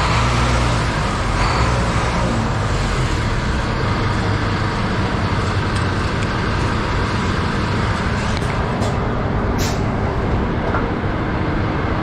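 Steady low rumble of idling diesel semi-truck engines at a truck-stop fuel island, with a brief sharp hiss about ten seconds in.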